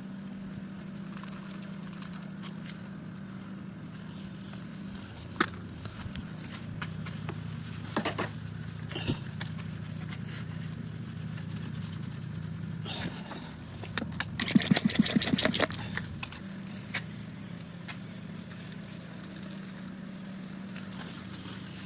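Truck's diesel engine running steadily, its pitch shifting a couple of times, with a few sharp clicks and a brief burst of rapid rattling about fifteen seconds in.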